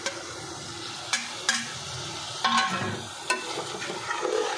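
Steel spoon clinking and scraping against a steel plate and a steel cooking pot as chopped okra is tipped into a frying chicken masala and stirred, with a steady sizzle beneath. About five sharp clinks stand out from the scraping.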